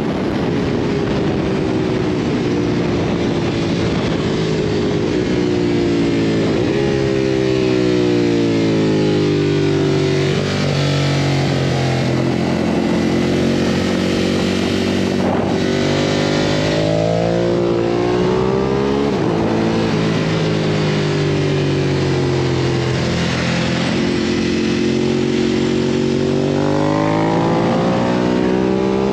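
Ducati Monster 1200S's 1198 cc L-twin engine at full track pace, heard from onboard. The engine note climbs hard under throttle, then drops several times on braking and downshifts before climbing again. Heavy wind rush sounds throughout.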